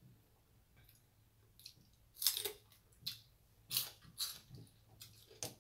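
Crisp celery stalk dipped in ranch being bitten and chewed, a run of sharp crunches, about one or two a second, the loudest a little over two seconds in.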